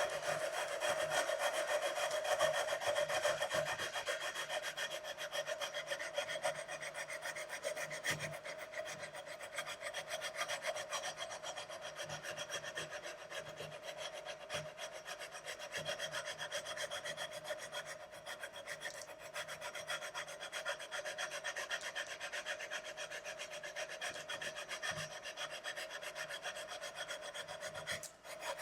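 Long fret-levelling bar with sandpaper being rubbed back and forth along the frets of a Squier Stratocaster neck in fast, even strokes, grinding the high frets down to level them. The rubbing stops just at the end.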